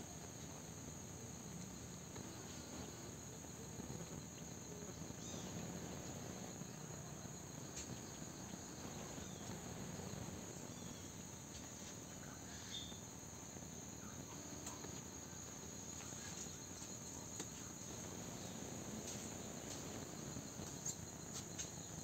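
Faint steady high-pitched insect chorus, crickets or similar, with a few scattered soft clicks.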